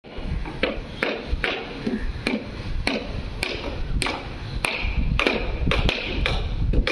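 Hammer striking steel centering plates: sharp ringing metallic taps, about two a second, over a steady low rumble.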